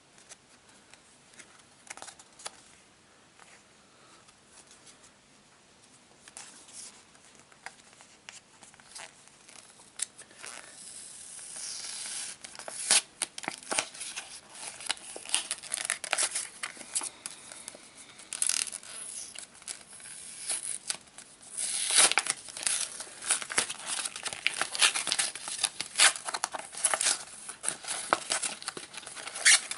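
Paper and card packaging of a SIM card being handled by hand, rustling, crinkling and tearing. It is faint with scattered small clicks at first, then from about eleven seconds in it turns into dense, loud rustling and tearing.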